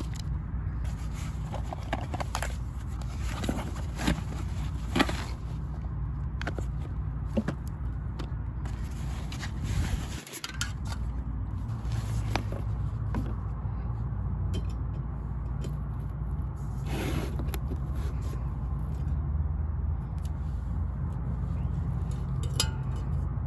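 Scattered clicks and scrapes of camp gear being handled, over a steady low rumble.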